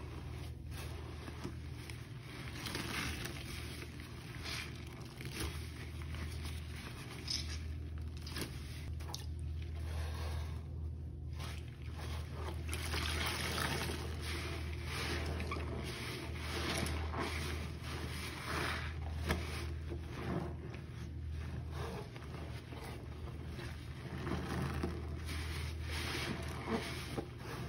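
Soaked sponge squeezed and kneaded by rubber-gloved hands in a plastic basin of foamy detergent-and-bleach water: repeated wet squelching, sloshing and dripping, over a steady low hum.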